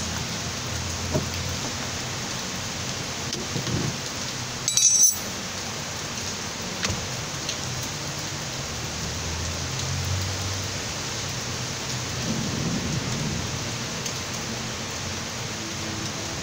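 Water rushing steadily through a washing machine's drain valve and hose as it fills and empties at once, the fault where water let in runs straight out. A single loud knock about five seconds in.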